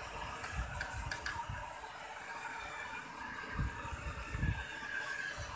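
Electric toy train running around its toy track, a steady whir of its small motor and wheels, with a few low bumps.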